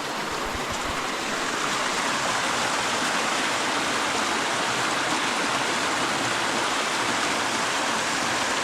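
Small waterfall on a forest creek, water pouring and splashing in a steady, even rush that swells slightly in the first couple of seconds.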